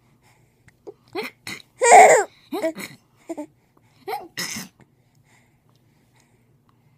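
A baby hiccuping over and over: a quick string of short, squeaky hiccups and little voice sounds. The loudest comes about two seconds in, and they stop before five seconds.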